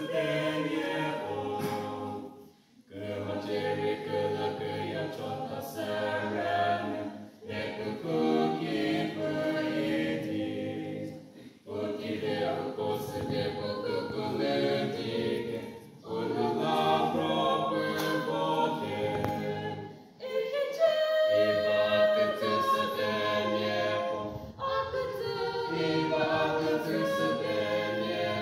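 Mixed vocal quartet, two men and two women, singing together unaccompanied, in long phrases broken by short pauses for breath about every four seconds.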